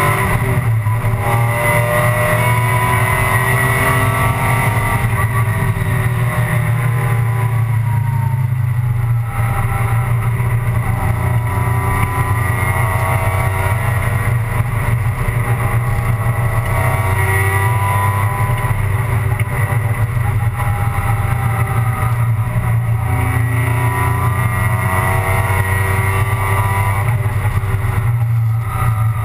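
Alfa Romeo 156 GTA race car's 3.2-litre V6 heard from inside the cockpit at racing speed, its note climbing under full throttle and dropping at gear changes and lifts, over a steady loud drone of wind and road noise.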